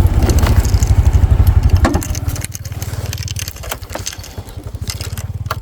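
A small engine running with a fast, even pulse. It is loud for about the first two seconds, then eases off to a lower level. Clattering and crunching noises sit on top of it.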